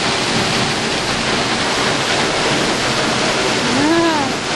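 Tall waterfall pouring down, a steady rushing roar of falling water. About four seconds in, a short voice-like sound rises and falls in pitch.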